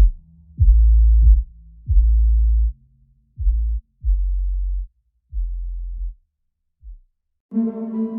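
Electronic background music: a run of deep bass hits, each held for a moment, getting shorter and quieter. About seven and a half seconds in, a softer sustained synth chord takes over.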